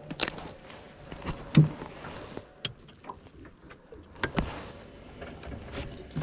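Scattered knocks, clicks and rustles of a fishing landing net being handled on a boat deck with a northern pike in it. The loudest is a dull thump about a second and a half in.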